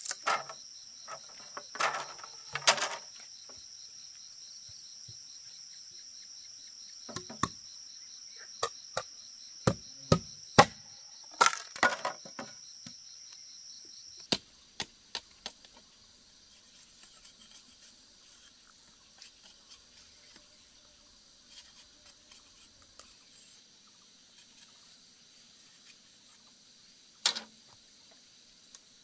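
Machete chopping a bamboo stake: irregular sharp knocks of the blade biting into the bamboo, some in quick pairs. A steady high insect drone runs underneath and stops abruptly about halfway.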